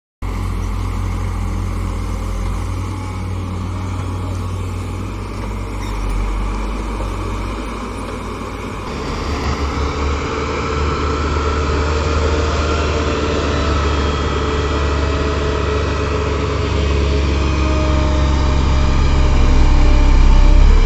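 Diesel engine of a vibratory road roller running steadily, growing louder near the end.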